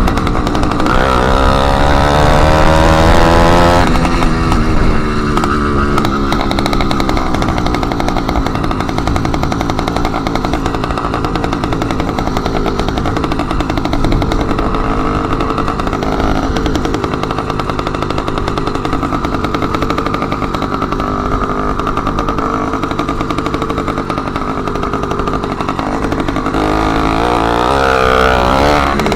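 Motorized bicycle's small engine running loud through an exhaust with its end tip removed. It climbs in pitch as it accelerates over the first few seconds, holds a steady rattling drone while cruising, and rises in pitch again near the end.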